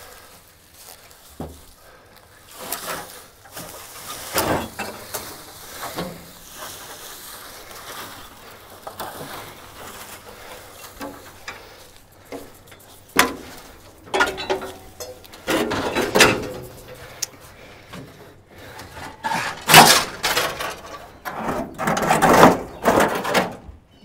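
Rusted sheet-metal body panels being shifted on a steel trailer deck: irregular scraping and clunking, with louder bangs about halfway through and again near the end.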